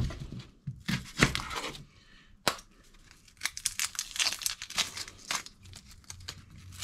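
Dry, papery onion skin crackling and tearing as it is peeled off a whole yellow onion by hand, in several rustling bursts, with a single sharp click about two and a half seconds in.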